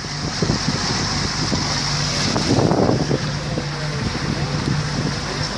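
Suzuki 175 outboard motor running steadily under way, a low hum, with the boat's wake rushing and wind buffeting the microphone.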